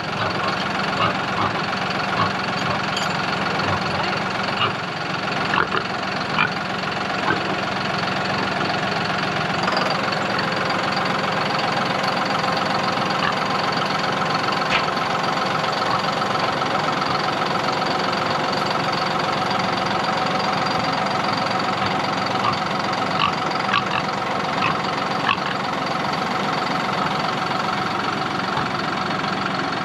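Engine of the vehicle towing a portable pig shelter, running steadily at a constant speed; its note shifts slightly about ten seconds in.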